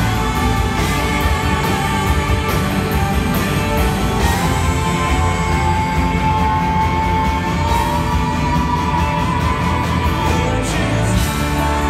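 A live rock band plays a slow song on electric guitars, bass, drums and organ, with one long held note ringing out above the band from about four seconds in until about ten seconds in.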